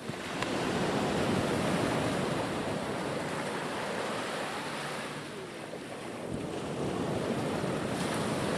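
Small sea waves washing in and breaking around boulders at the shoreline, a steady rush of surf that swells in the first seconds, eases around the middle and builds again near the end, with wind buffeting the microphone.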